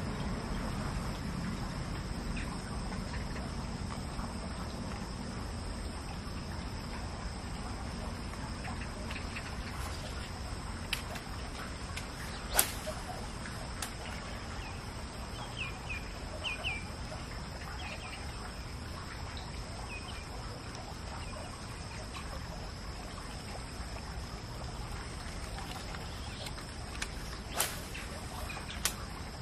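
Steady drone of insects, with a few short bird chirps near the middle. A sharp click about twelve seconds in and two more near the end.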